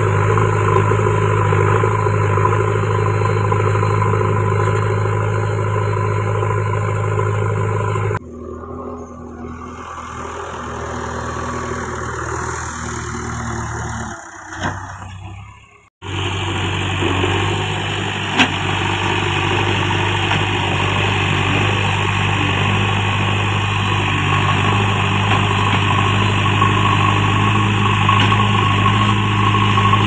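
JCB 3DX backhoe loader's four-cylinder diesel engine running steadily while the front bucket levels soil. About a quarter of the way in, the sound drops abruptly quieter, dies away briefly about halfway, then comes back at full level.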